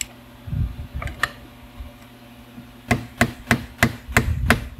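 A hand hammer tapping on a screwdriver: a couple of single knocks, then from about three seconds in a run of six quick strikes, about three a second. It is working a locking ring around into its groove on a car lift's hydraulic cylinder.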